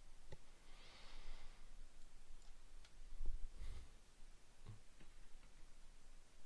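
Quiet room tone with a few scattered faint clicks and a soft low thump a little over three seconds in.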